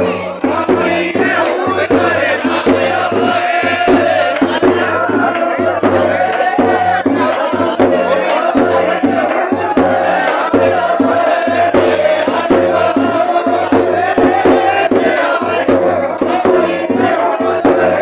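A large crowd of men chanting and shouting together over loud music.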